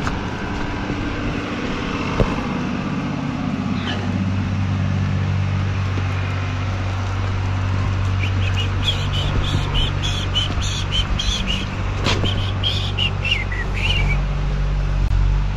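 A tractor engine running steadily, with a bird chirping rapidly in a quick series for several seconds in the middle.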